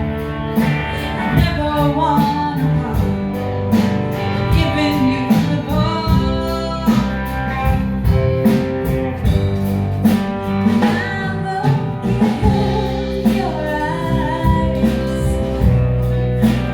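A song with a sung melody over guitar and a steady beat, cutting off abruptly at the end.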